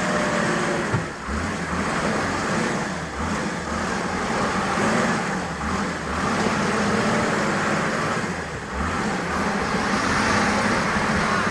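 Large vehicle engine running hard under load, its low note shifting up and down over a steady rushing noise.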